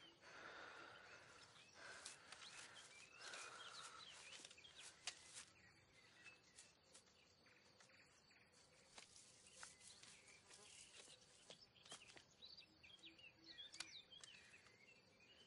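Faint forest ambience: small birds chirping intermittently, with scattered sharp clicks and rustles of undergrowth.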